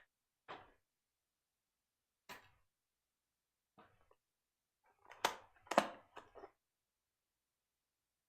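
Scattered short clicks and knocks as PC power supply cables and parts are handled, picked up and set down. A louder cluster of sharp plastic-and-metal clacks comes about two thirds of the way through.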